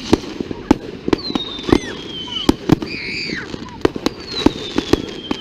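Fireworks display: a rapid, irregular series of sharp bangs, about two a second, with two long whistles that slide slowly down in pitch, from whistling fireworks.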